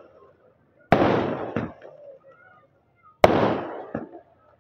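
Aerial fireworks bursting: two loud bangs about two and a half seconds apart. Each fades away over about a second, with a small pop soon after.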